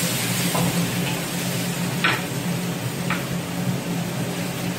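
Sliced king oyster mushrooms and carrot strips sizzling in a wok over high heat, stirred with a wooden spatula that scrapes against the pan a few times.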